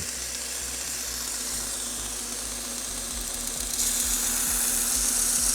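Bucktool 2x42 belt grinder running with a 120-grit ceramic belt, its motor humming steadily while an axe edge is ground against the belt to raise a burr. The grinding hiss grows louder about four seconds in.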